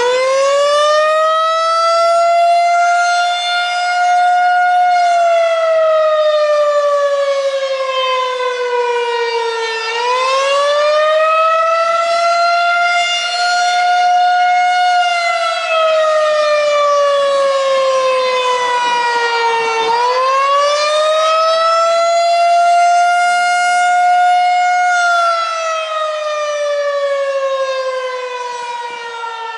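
Federal Signal 2001-130 electromechanical outdoor warning siren sounding the Attack signal. Its pitch winds up over a second or two, holds for a few seconds, then slides slowly down, repeating about every ten seconds.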